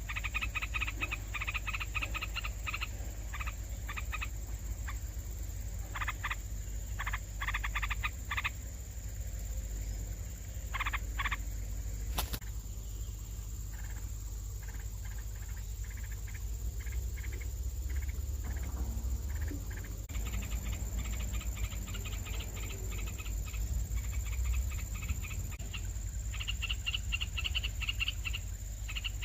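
Nestling birds giving begging calls: bouts of rapid, chattering pulses, busiest near the start and again through the last third, over a steady low hum and a faint steady high whine.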